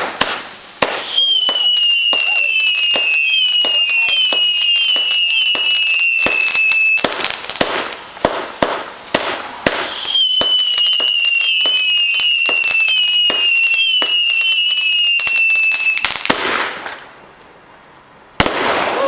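Garden fireworks going off: rapid crackling bangs throughout, and twice a long warbling whistle from whistling fireworks that lasts about six seconds and sags slightly in pitch. The noise dies away briefly, then a sudden loud burst comes near the end.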